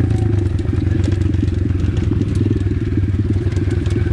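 Apollo RFZ 125cc pit bike's single-cylinder four-stroke engine running steadily under way, with rapid clatter and knocks as the bike jolts over loose rocks.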